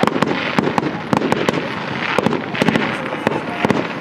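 Fireworks going off in a dense, irregular run of sharp bangs and crackles, several a second, over a constant rushing crackle.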